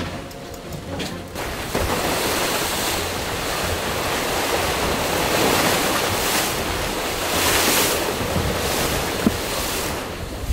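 Rushing water and spray along the hull of an IMOCA 60 racing sailboat under way, with wind buffeting the microphone. The noise swells about a second and a half in and comes in several louder surges of spray.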